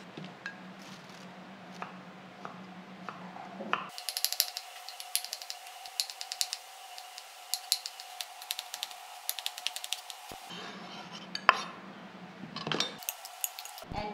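Kitchen knife chopping a firm white vegetable on a wooden cutting board: a quick run of sharp strokes from about four seconds in to about ten seconds. A few scattered knocks follow. A low steady hum comes before the chopping.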